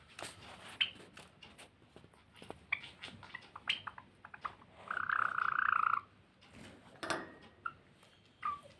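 Caged finches calling: scattered short chirps and clicks, with one harsh, buzzing call about a second long near the middle as the loudest sound.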